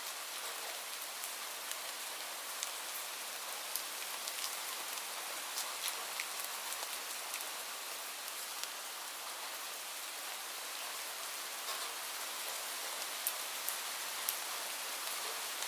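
Light rain falling steadily: an even hiss with scattered sharper drop ticks.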